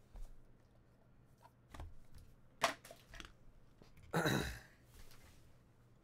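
Trading cards and packaging handled on a table: scattered taps and clicks, with a louder half-second rustle a little after four seconds in.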